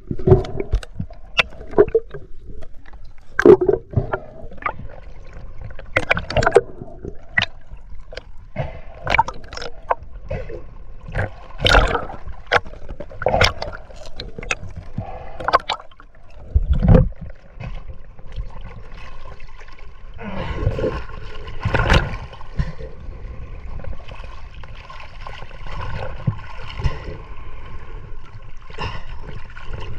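Water heard through an underwater camera: gurgling and bubbling with many sharp knocks and clicks through the first half, likely from handling the spear and net bag. In the last third it gives way to steadier splashing of choppy surface water as the camera comes up at the float.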